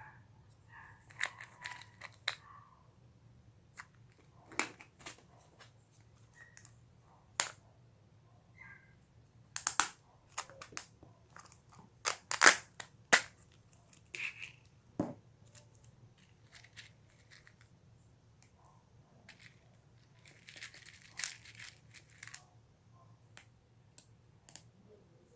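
Hands playing with homemade clear slime: irregular sticky clicks, pops and crinkly squelches, with a cluster of louder pops about halfway through.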